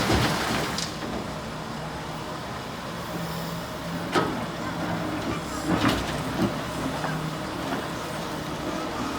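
Excavator diesel engine running steadily, with a few short knocks about four seconds in and again around six seconds.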